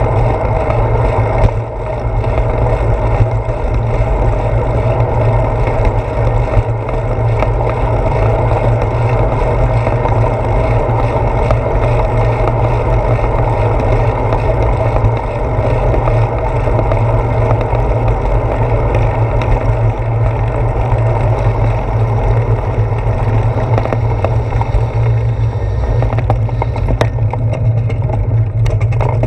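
Steady, loud wind buffeting on a handlebar-mounted GoPro's microphone as a bicycle rides along, a low rumbling rush with a few short knocks from bumps in the path.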